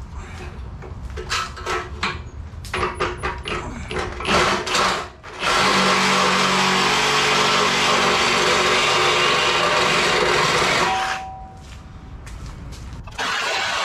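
Milwaukee Sawzall cordless reciprocating saw cutting through a steel car frame rail. It runs in short stop-start strokes for the first few seconds, then cuts steadily for about five seconds until the frame horn comes free. It starts up again near the end.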